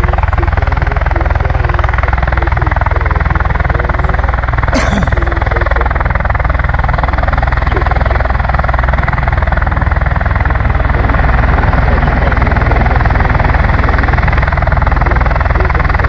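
Marine Corps V-22 Osprey tiltrotors running on the ground, their turboshaft engines and proprotors making a loud, steady low thrum. A short tick is heard about five seconds in.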